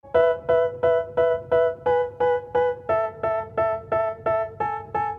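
Background music: a piano-like keyboard chord struck evenly about three times a second, starting just after a silence and moving to a new chord about three seconds in.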